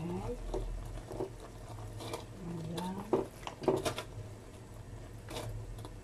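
Coconut milk and brown sugar simmering in a steel pot while mashed sweet potato is tipped in from a plastic container, giving soft irregular plops and taps over a steady low hum.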